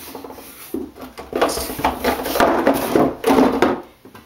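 Hair-product bottles and jars being rummaged through, with irregular knocking, clattering and rubbing as containers are moved against each other. It dies down near the end.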